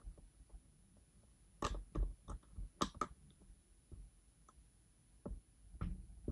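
Lock pick and tension tool clicking inside a Goal D9 lock as pins are lifted one by one: about nine sharp, irregular clicks, most of them bunched a second or two in and a few more near the end.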